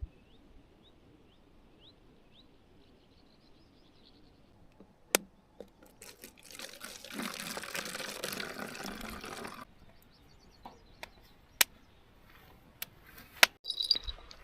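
Liquid being poured for about three and a half seconds, a steady splashing hiss that starts and stops cleanly, with a few sharp clicks before and after.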